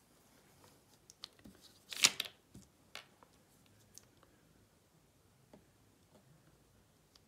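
Scattered light clicks and taps of art supplies being handled on a tabletop, with one louder, longer noise about two seconds in.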